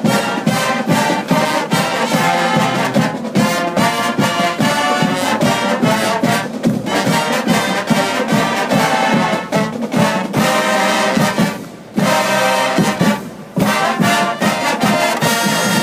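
A marching band's brass section (trumpets, trombones and other horns) playing a loud, punchy tune over a steady beat, with two brief breaks a few seconds before the end.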